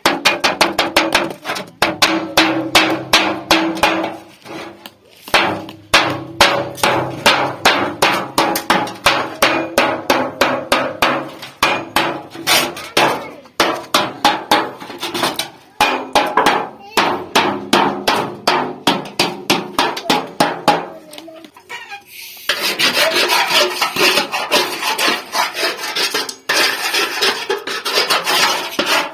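A hammer striking refrigerator sheet metal in rapid, repeated blows, each with a short metallic ring, as the pot is beaten into shape. About three quarters of the way through the hammering stops and a steady rasping of metal being filed or scraped takes over.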